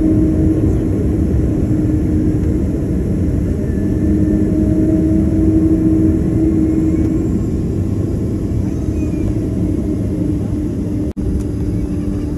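Jet airliner cabin noise: a loud, steady engine roar with a constant low hum running through it.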